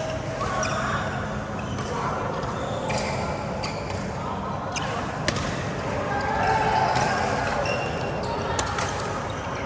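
Badminton rackets striking a shuttlecock, sharp strikes about a second or so apart, over the chatter of voices in a sports hall.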